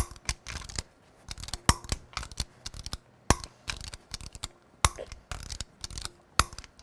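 Click-type torque wrench ratcheting on wheel lug nuts in quick runs of small clicks, with five sharp, louder clicks about every second and a half. Each loud click is the wrench breaking over as a lug nut reaches 140 foot-pounds.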